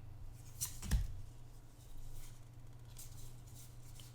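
Faint handling of Pokémon trading cards and a foil booster pack: a few light rustles and taps, the clearest about a second in, over a steady low hum.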